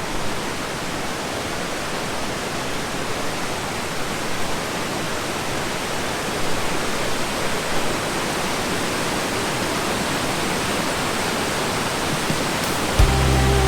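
Waterfall rushing, a steady even roar of falling water. Music with a heavy bass comes in near the end.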